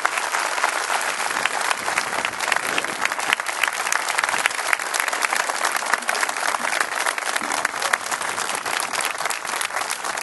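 A crowd applauding, with many hands clapping in a dense, steady patter.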